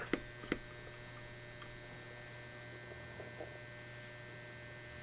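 Steady low electrical mains hum with a faint hiss. Two light taps near the start as the paintbrush works in the watercolor tin.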